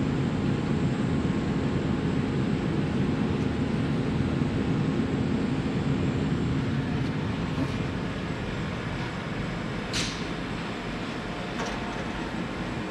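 Electrovert Electra 500F wave solder machine running in production mode: a steady mechanical hum and rush from its solder pot and fans, easing off somewhat about two-thirds of the way through, with a single light click near the end.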